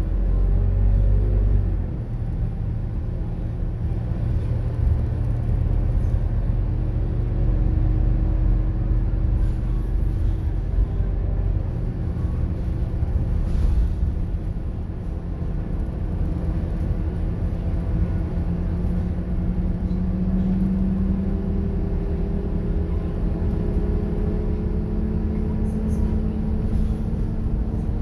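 Scania K230UB city bus heard from inside the passenger cabin while under way: a steady low rumble from its five-cylinder diesel engine and the road, with the engine note rising slowly through the middle as the bus picks up speed.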